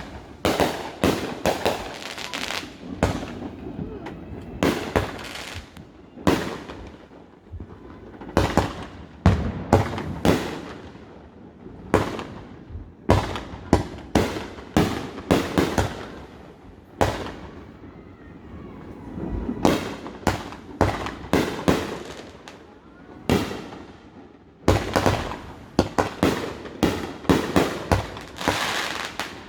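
Fireworks going off: a long run of sharp bangs at irregular intervals, each fading away after the report, packed closest together in a rapid volley near the end.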